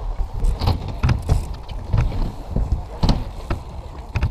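BMX bikes riding on skatepark ramps: a steady low rumble of tyres on the ramp surface, broken by several sharp knocks and clacks from wheels and landings. One knock comes near the end as a rider clears the rail beside the microphone.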